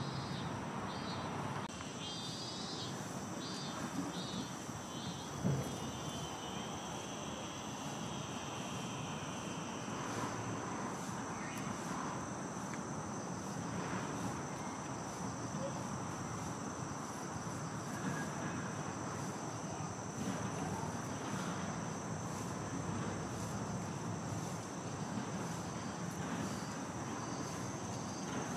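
Insects shrilling steadily outdoors, with a run of short repeated chirps in the first few seconds. One short knock comes about five seconds in.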